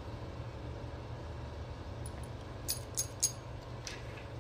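Metal parts of a diesel fuel injection pump governor clicking together as they are handled and fitted: three sharp clicks between about two and a half and three and a quarter seconds in, and a softer one near four seconds, over a steady low hum.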